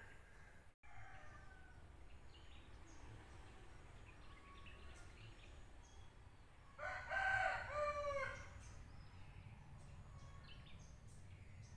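A rooster crowing once, a call of several arched syllables lasting about a second and a half, about seven seconds in. Faint short bird chirps come and go over a steady low rumble.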